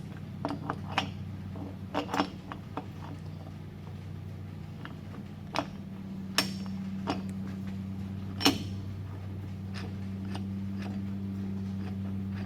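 Scattered metallic clinks and taps of a wheel puller and its nuts being handled and threaded onto the wheel studs, the sharpest two about six and eight and a half seconds in, over a steady low hum.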